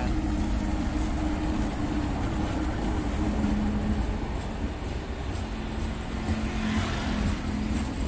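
Green DF4 'watermelon' diesel-electric locomotives hauling a works train of loaded flatcars past at close range: a steady diesel engine drone over a low rumble of the train's running gear.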